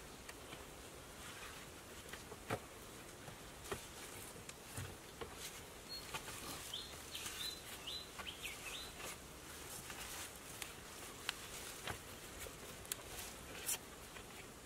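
Faint outdoor ambience with scattered light clicks and knocks from the bamboo-and-pole sleeping platform as people climb onto it and lie down. A bird gives a quick run of about six short chirps in the middle.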